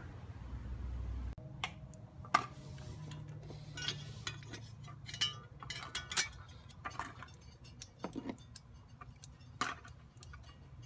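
Irregular metallic clicks and clinks of hand tools and small metal parts being handled, with a faint steady low hum underneath.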